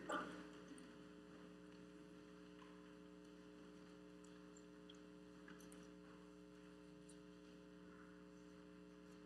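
Near silence: a steady electrical mains hum, with a brief soft noise right at the start.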